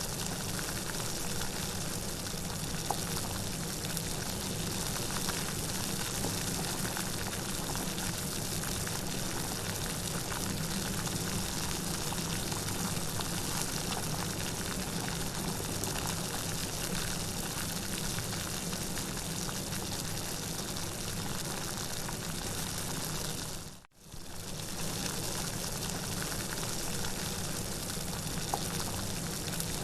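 Steady rain, a continuous even hiss of falling water. It cuts out for a moment and fades straight back in about four-fifths of the way through, like the seam of a looped recording.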